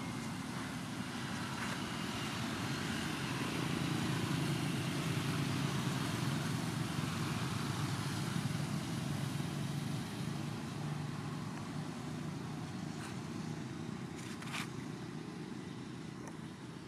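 A motor vehicle passing on the road, its low engine and tyre noise growing louder over the first few seconds and then slowly fading away.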